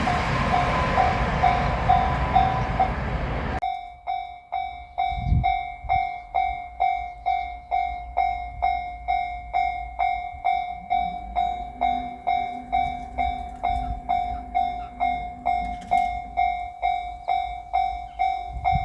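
JR Shikoku 8000-series limited express train rushing over a level crossing for the first few seconds, its noise cutting off abruptly. After that the crossing's electronic warning bell keeps ringing alone, about two dings a second, a steady clanging tone signalling the crossing is still closed.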